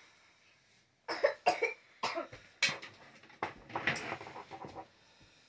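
A person coughing in several short bouts, starting about a second in, with voice-like sounds between them.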